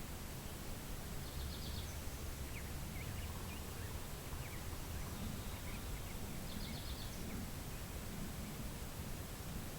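Wind rumbling low over a steady hiss, with small birds calling: a short rapid high trill about a second and a half in and again near seven seconds, and faint short chirps scattered between.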